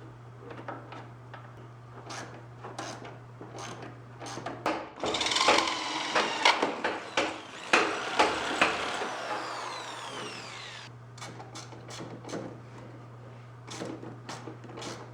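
Hand work on mower wiring and parts: scattered clicks, taps and rattles of tools and small parts, with a louder stretch of scraping and rustling with sharp clicks in the middle, over a steady low hum that drops out during the louder stretch.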